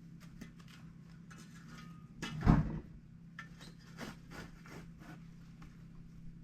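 Campfire coals and burning wood being raked and scraped into a bed in a trench: a series of short scrapes and rattles, with one louder crunching thump about two and a half seconds in.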